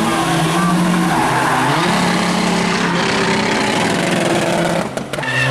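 Car engine held at high revs with tyre squeal, as in a drag launch or burnout. Its pitch steps up about two seconds in and drops off briefly near the end before picking up again.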